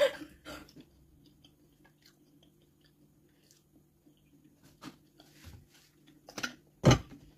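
Close mouth sounds of a person biting into and chewing ripe jackfruit flesh: a bite right at the start, then soft, wet chewing clicks. Two louder, sudden knocks come near the end.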